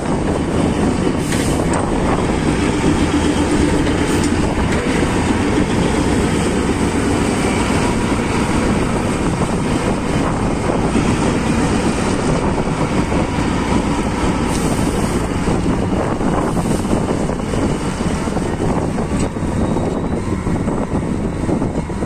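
Heavy diesel engine of a Cat 777 rigid haul truck running loud and steady at close range while the truck moves and hoists its dump body to tip its load of rock.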